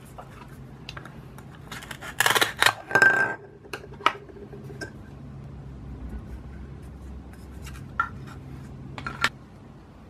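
Velcro-joined toy plastic tomato halves being pulled apart: a rough ripping sound in two quick pulls a little over two seconds in, then a few light plastic clicks and taps as the halves are handled.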